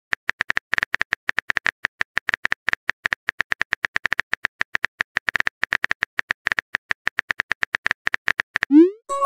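Simulated phone keyboard tap sounds from a texting-story app: a fast, uneven run of short, sharp clicks, about eight a second, as a message is typed out. Near the end the clicks stop, and a quick rising swoop marks the message being sent.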